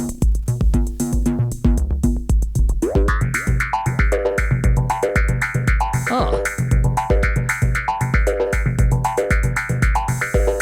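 Techno jam on an Arturia MiniFreak synthesizer: a steady kick drum beat and a bass line. A higher synth sequence comes in about three seconds in.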